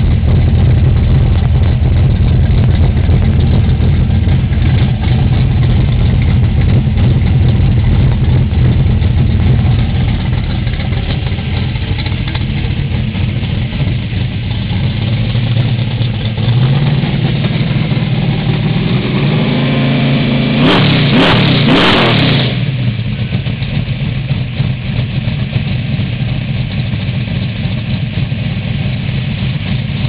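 Big-block V8 of a Chevrolet Nova race car running at a steady idle. About two-thirds of the way through it is revved, the pitch climbing for several seconds to a short peak, then it drops back to idle.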